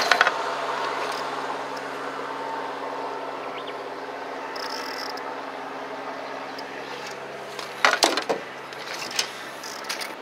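Steady low hum of a fishing boat's engine idling, with wash and wind noise over it. There are a few sharp knocks at the start and a cluster of them about eight seconds in.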